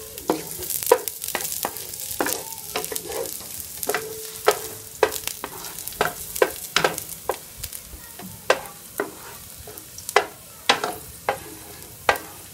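Spatula scraping and tapping a nonstick frying pan as minced garlic is stirred and sautéed in oil, with sharp irregular clicks, about one or two a second, over a steady sizzle.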